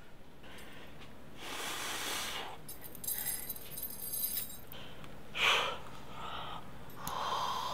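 A man's breathing, a few loud breaths, and in the middle a light metallic jingle of a small steel chain being hooked onto the buckle pads of a chest belt, set up for breaking the chain by lung expansion.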